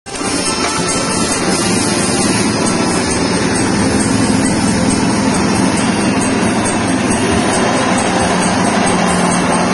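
Small single-cylinder petrol engine running steadily at speed, driving a stainless-steel soybean dehulling machine as it strips and splits the beans.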